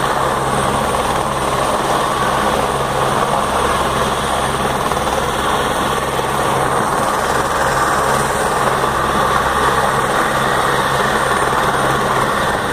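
Light single-engine helicopter running on the ground with its rotor turning: a steady, unbroken engine and rotor noise with a thin high whine over it.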